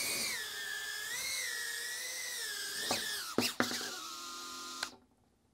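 GEPRC TinyGO tiny-whoop quad's four 1102 10,000 kV brushless motors whining as it flies, pitch wavering up and down with the throttle. A few sharp knocks come about three and a half seconds in, then a steadier, lower whine holds for about a second before the motors stop abruptly.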